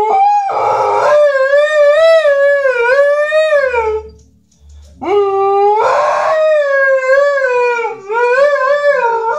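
Alaskan malamute howling: two long, wavering howls with a short break between them, each sliding up at the start and dropping away at the end.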